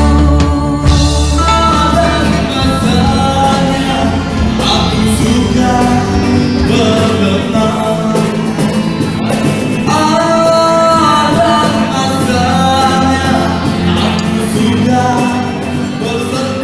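Music from a live pop band: electric guitars, keyboard and a singer. About a second and a half in, a clean studio recording of a ballad gives way to the band's live sound.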